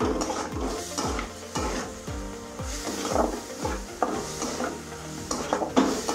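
Spatula scraping and stirring a spiced onion-garlic paste as it fries and sizzles in a pan, about two strokes a second. The paste is being cooked down (kashano) until it turns thick.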